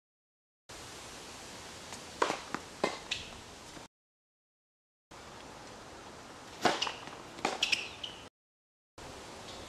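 Tennis ball being struck by racquets and bouncing on a hard court: a few sharp hits in each of two short bursts, serves and the returns that follow them. The stretches are separated by moments of dead silence where the footage is cut.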